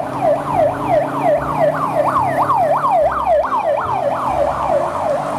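Ambulance siren sounding in a fast yelp, its pitch sweeping up and down about three times a second without a break.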